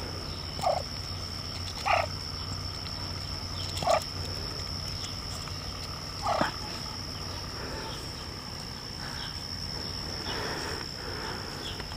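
Muscovy duck eating cat food from a hand: four short sounds about two seconds apart, then fainter ones.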